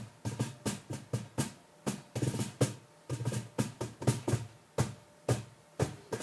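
Cajón slapped by hand: a run of sharp strikes, each with a low boom under it, about three to four a second in an uneven rhythm.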